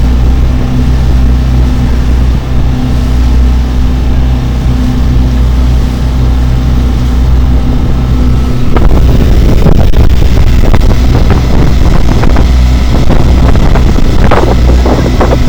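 Sightseeing boat's engine droning steadily under the rush of water and spray along the hull, with wind on the microphone. About nine seconds in the sound shifts abruptly, and rougher splashing and wind buffeting follow.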